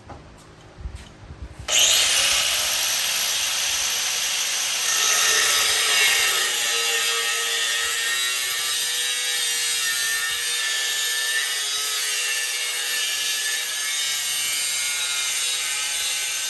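Angle grinder starting about two seconds in, then grinding steel continuously with a high, hissing whine whose tones waver as it is worked against the metal.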